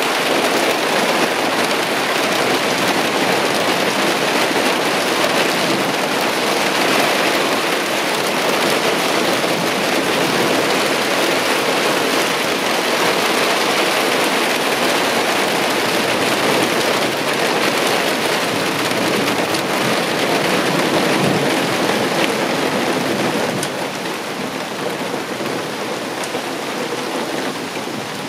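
Heavy downpour of large raindrops, a loud steady hiss of rain on surfaces, easing slightly near the end.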